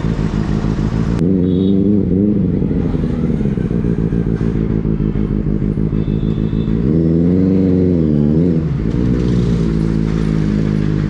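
Benelli 600i's inline four-cylinder engine running at a low, steady speed, revved briefly twice: the pitch climbs and falls back at about a second and a half in and again around seven seconds in.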